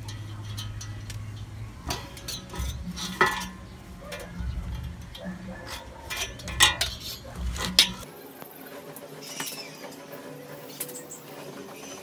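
Steel wrenches, a bolt and a thin metal strip clinking and tapping against a metal sheet, a string of sharp irregular clinks, loudest between about six and eight seconds in. About eight seconds in the sound changes to a quieter room with only a few faint ticks.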